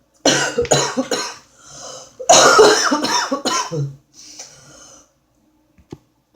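A woman coughing: a quick run of short, loud coughs, then a longer, rougher coughing fit, trailing off into a quieter breathy exhale.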